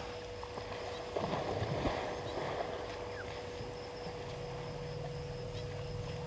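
African bush elephants splashing and sloshing in a waterhole, with a louder burst of splashing a bit over a second in, over a steady faint hum.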